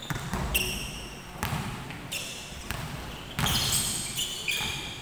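Basketball shoes squeaking on a hardwood court, several short squeals with a longer, louder run of them in the second half, mixed with the thud of a basketball bouncing on the floor.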